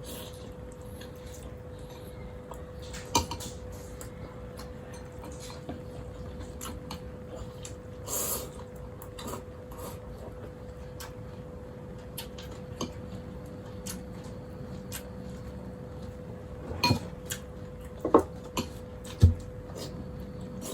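Spoons and chopsticks clinking against bowls during a meal, with scattered clicks and a few sharper knocks near the end, over a steady low hum.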